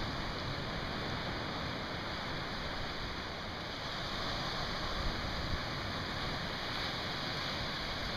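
Ocean surf breaking over a flat rock shelf along the shore: a steady, even wash of noise with no single wave standing out.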